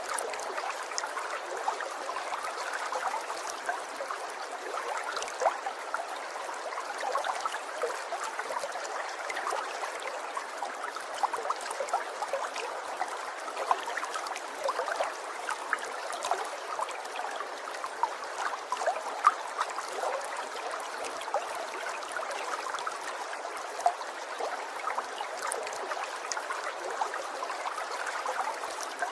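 Steady trickling of running water, with many small splashes and gurgles and no change throughout.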